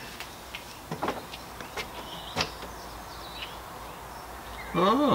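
A few sharp knocks and clicks at a wooden door, the loudest about two and a half seconds in, as a man comes up to it and raps its newly fitted door knocker.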